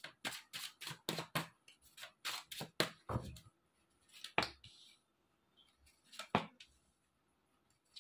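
A deck of tarot cards being shuffled by hand, a quick run of crisp clicks about three a second for the first three and a half seconds. Then two single clicks as cards are laid down on the cloth.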